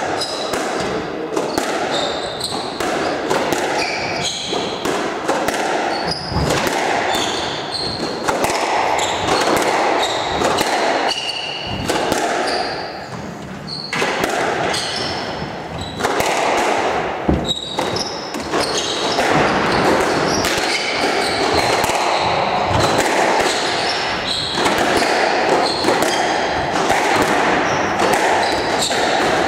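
A squash rally: the ball smacking off racket strings and the court walls again and again, with rubber-soled court shoes squeaking on the wooden floor.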